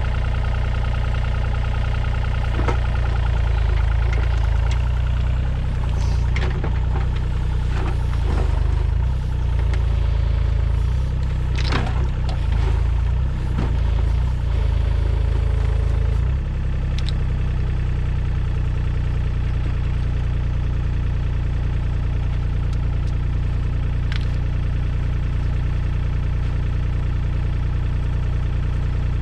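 New Holland mini excavator's diesel engine running, with scattered knocks and clanks from the machine working during the first half. About sixteen seconds in the engine note changes and settles into a steady idle.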